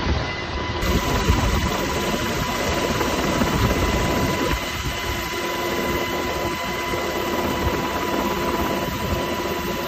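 UH-60 Black Hawk helicopter in flight, heard from inside the cabin by the open floor hatch. Its twin turboshaft engines and rotors make a steady, loud noise with a constant high whine running through it.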